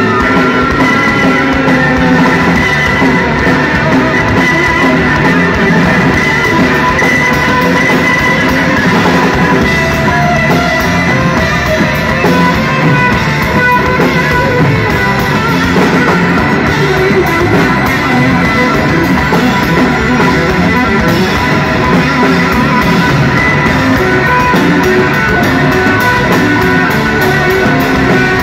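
Live rock band playing an instrumental stretch with no singing: electric guitar, electric bass guitar, drum kit and keyboards, loud and continuous.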